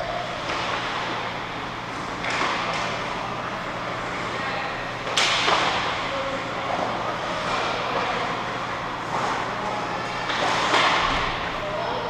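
Ice hockey play echoing around an indoor rink: sticks and puck clacking and pucks knocking against the boards, with skate scrapes. There are several sharp knocks, the loudest about five seconds in and a cluster near the end, over a steady low hum.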